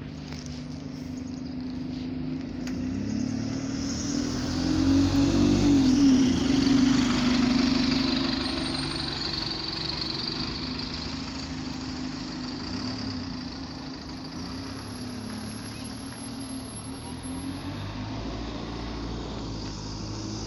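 Alexander Dennis Enviro200 Dart single-deck diesel bus pulling away from a stop. The engine hum rises in pitch and loudness as the bus moves off past close by, loudest about six seconds in, then fades as it drives away.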